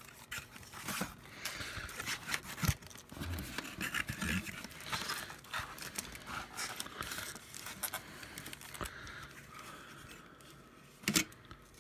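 Trading-card box packaging being handled and opened: irregular crinkling, scraping and tearing of cardboard and wrappers, with scattered clicks and taps. A sharp click comes about three seconds in and a louder one near the end.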